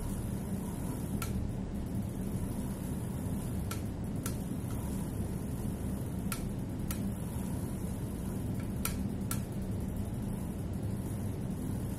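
Sharp clicks from a bicycle's drivetrain, several in pairs about half a second apart and the pairs coming every two to three seconds, over a steady low rumble; the uploader suspects a bottom bracket problem.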